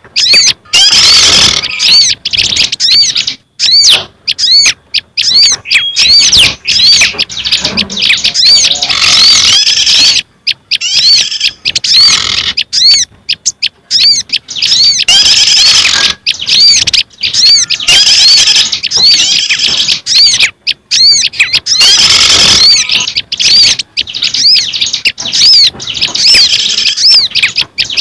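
Bird-lure recording of several small songbirds' calls mixed and overlapping, played as bait to draw small birds. Rapid, high-pitched chirps repeat several times a second almost without pause, broken only by brief gaps.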